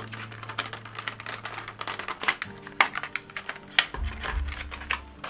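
Small plastic toy boxes being handled and opened: irregular crackling and clicking of the plastic, with a dull bump about four seconds in.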